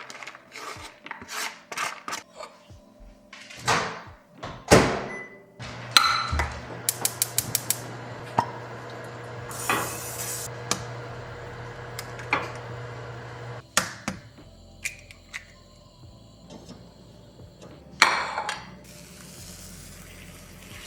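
Kitchen sounds as a meal of leftovers is put together: dishes and utensils clink and knock, with a quick run of clicks near the start. For about eight seconds in the middle a microwave oven hums steadily, reheating food, then stops abruptly.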